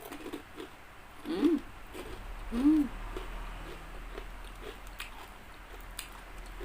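A person chewing crunchy fried chicken with mouth clicks and crunches, giving two short closed-mouth "mmm" hums of enjoyment about a second and a half and nearly three seconds in.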